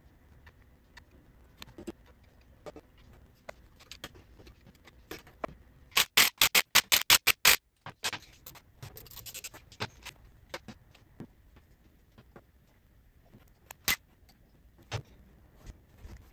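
Hand tools working on the Austin-Healey Sprite's engine: scattered light metallic clicks and clinks, with a quick run of about nine loud clicks near the middle.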